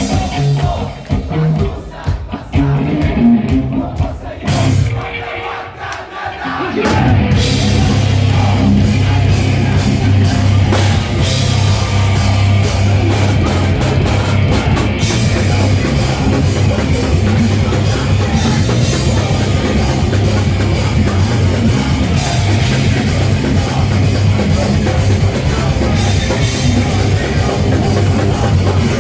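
Live rock band playing. A sparse passage of separate drum and instrument hits opens it, then the full band comes in loud at about seven seconds and plays on steadily.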